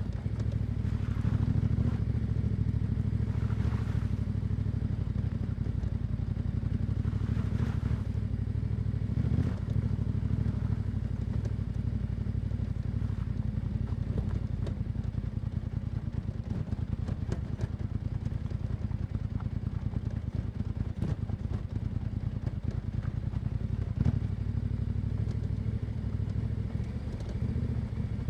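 Yamaha Ténéré 700's parallel-twin engine with an Akrapovič exhaust, heard from the rider's position while riding at a fairly steady engine speed, without big revs. Scattered sharp clicks and knocks come through the middle stretch.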